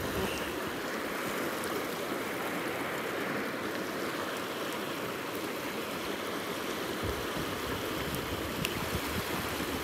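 Fast mountain creek rushing over boulders and rocks: a steady hiss of running water.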